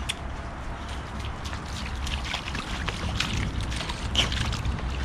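A boxer dog wading and splashing in a rain puddle: water sloshing with many small, quick splashes, more of them from about two seconds in, over a steady low rumble.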